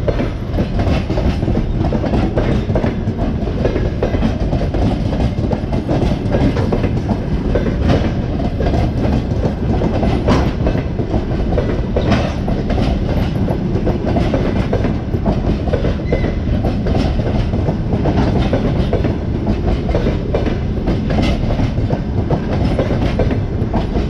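Passenger coaches of an express train rolling past on departure: a steady rumble of wheels on rails, with repeated sharp clicks as the wheels cross the rail joints.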